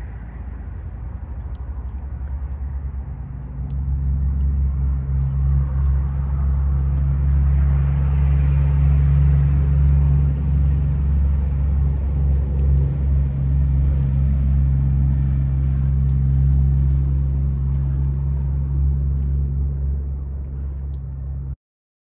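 A steady low engine drone that gets louder about four seconds in and cuts off abruptly near the end.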